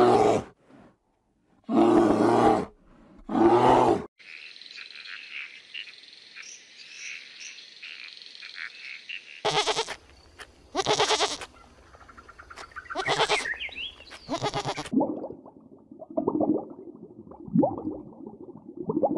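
A string of animal calls from different animals: three loud calls in the first four seconds, a high chirping chorus for about five seconds, then more loud calls, turning to deeper, lower calls near the end.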